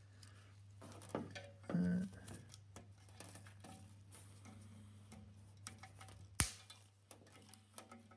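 Faint handling clicks and ticks as a hand works at cable ties and spring hooks on a stainless exhaust manifold, with one sharp click about six and a half seconds in, over a low steady hum.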